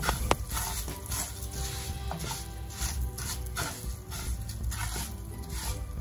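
Rice-A-Roni rice and vermicelli toasting in oil in a skillet, sizzling steadily, with short scrapes of stirring every second or so. Faint music plays underneath.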